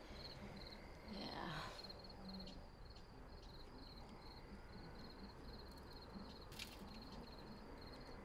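Faint, steady chirping of crickets, about three short chirps a second. A brief soft whoosh comes about a second in.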